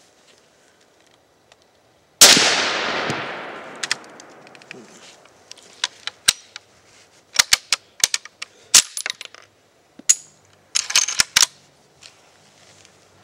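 One rifle shot from a 7.62x54R Mosin-Nagant M91 about two seconds in, a loud crack with a long echo dying away over a couple of seconds. It is followed by a run of sharp metallic clicks and clacks as the bolt is worked. With this surplus ammunition the rifle would not extract its spent cases.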